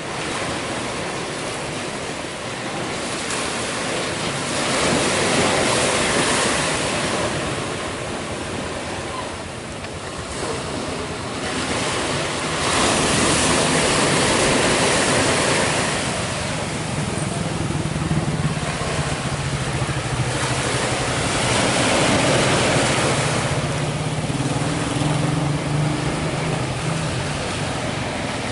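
Ocean surf breaking, with the wash rising and falling in surges every several seconds. A low steady motor hum comes in a little past the middle.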